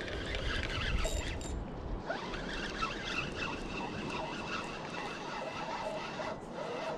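Spinning reel being cranked to retrieve a cast lure, with a steady high whine through the middle of the retrieve. Wind rumbles on the microphone for the first two seconds.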